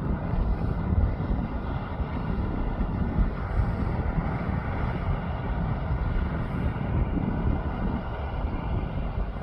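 Wind buffeting the microphone outdoors: a steady, gusty low rumble with no distinct events.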